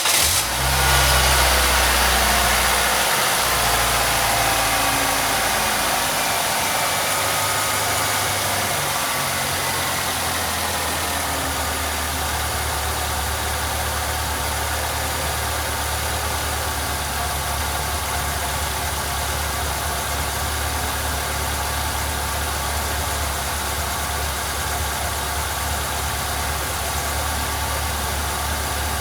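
Vehicle engine idling, a little louder and higher in the first seconds, then settling into a steady idle.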